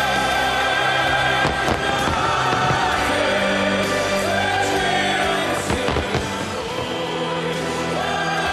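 Aerial fireworks shells bursting in a display set to music: several sharp bangs over slow music with long held notes.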